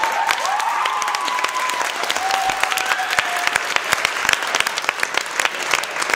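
An audience clapping steadily, with a few voices cheering and whooping during the first couple of seconds.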